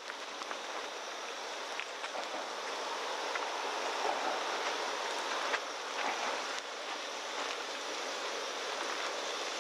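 Mapo tofu simmering in a wok over a gas camp-stove burner: a steady sizzling hiss with small crackles, and a few light clicks of a utensil in the pan.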